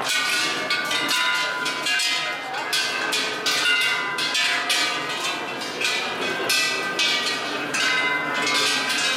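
Rows of hanging metal temple bells struck one after another by people walking past: clangs come about twice a second, each leaving a ringing tone that overlaps the next. Crowd voices mix in underneath.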